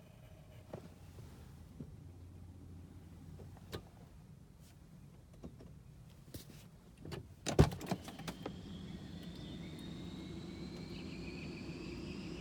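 2017 Toyota Tacoma TRD Pro making the strange ticking of its failed start: faint scattered ticks, then a burst of loud clicks about seven and a half seconds in. A whine follows, rising slowly in pitch over a low hum.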